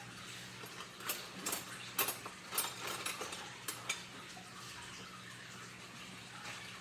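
Dishes and kitchen utensils clinking and clattering in a quick run of sharp knocks for about three seconds, over a steady background hiss.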